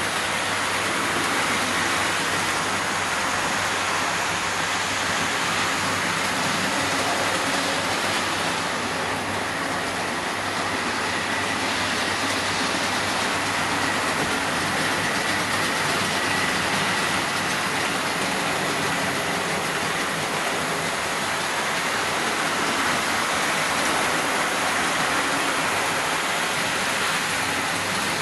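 Several OO gauge model trains running at once on a layout: a steady rushing of wheels on the track and whirring of their electric motors, with a faint high whine held throughout.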